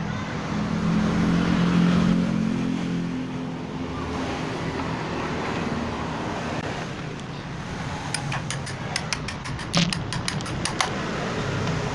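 Electric motor of a workshop power tool running steadily with a hum while the wooden pulley is worked. About eight seconds in, a quick run of sharp ticks and knocks sounds over it for a few seconds.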